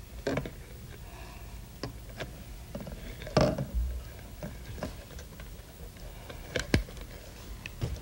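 Rubber balloons being stretched over the necks of clear plastic bottles: scattered short clicks, snaps and crinkles of handled plastic and rubber, the loudest about three and a half seconds in.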